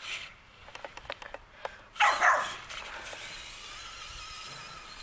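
A small dog gives a short bark about two seconds in.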